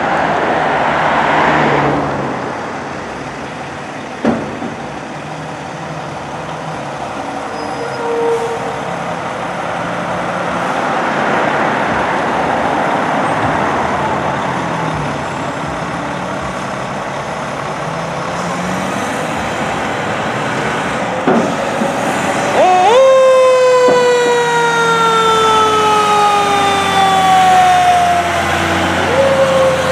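Fire truck's diesel engine running as the ladder truck pulls out. About three-quarters of the way through, its Federal Q mechanical siren winds up sharply and then slowly winds down in pitch, and it winds up again near the end.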